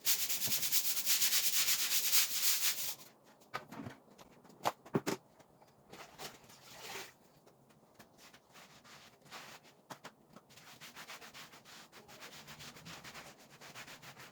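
Fast, even scrubbing strokes for about three seconds, typical of cleaning grime out of a dirty channel. Then come quieter, intermittent rubbing and a few light knocks.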